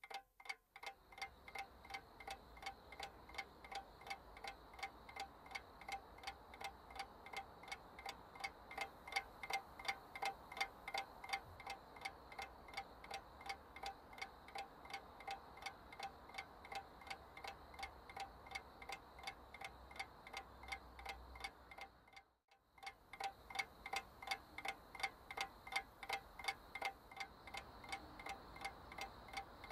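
Faint, fast, even ticking like a clock, each tick with a brief chiming ring; the ticking breaks off for a moment about three-quarters of the way through, then carries on.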